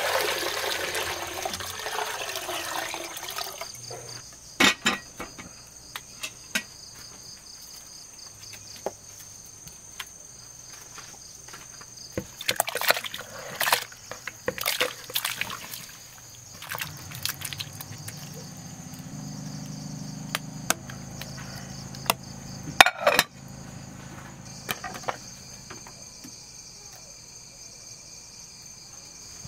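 Crickets chirping steadily, with water poured into a metal cooking pot for the first few seconds. A few sharp knocks and clatters follow later, the loudest a little over 20 seconds in.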